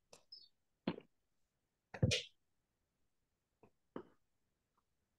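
A few short, separate knocks and rustles with silence between them. The loudest, about two seconds in, is a low thud followed by a brief hiss.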